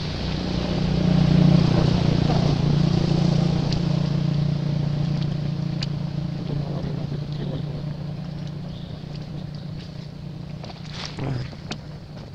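A motor engine running as a steady low hum, loudest about a second and a half in and slowly fading away, with a few faint clicks near the end.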